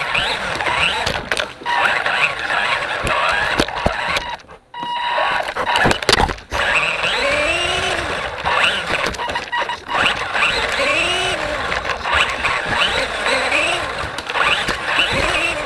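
Redcat Racing SumoRC 1/24 mini monster truck's small electric motor whining, its pitch rising and falling over and over as the throttle is worked, heard close up from the truck's roof, with wheels rattling over a hardwood floor and sharp knocks from bumps. The sound drops away briefly about four and a half seconds in.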